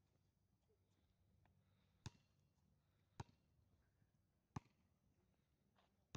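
Basketball bouncing on a hard court: four faint single bounces, roughly a second or more apart, over a low steady hum.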